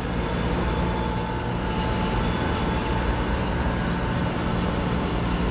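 Steady machinery drone in a plant room full of water piping: a low hum with a faint, steady high whine that does not change.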